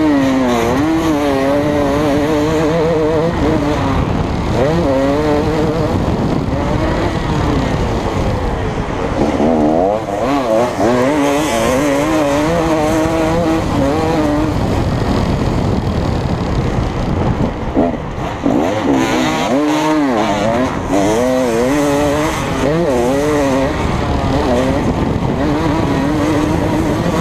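KTM 250SX two-stroke motocross bike racing, its single-cylinder engine revving up and down in quick rising and falling surges as the throttle is opened and closed, over wind rushing past the helmet-mounted camera.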